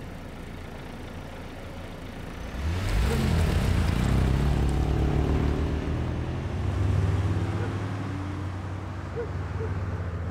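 A car engine idling, then revving hard about two and a half seconds in as the car pulls away, its pitch climbing, dropping and climbing again as it accelerates, then easing off.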